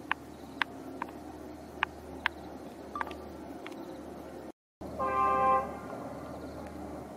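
A diesel passenger train's horn sounds once, a short steady blast of about half a second, right after a brief dropout. Before it, scattered short, sharp high chirps sound over a low steady background.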